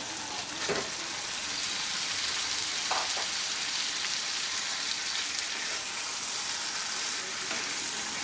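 Hot mustard oil and spice paste sizzling steadily in a pan as boiled taro leaves are tipped in and stirred with a wooden spatula, with a couple of faint knocks.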